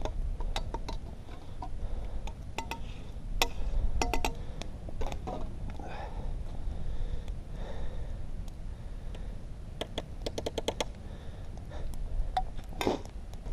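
A utensil clicking and tapping against a pan as eggs are scrambled. The sharp ticks come scattered, with a quick run of even taps about ten seconds in, over a low rumble.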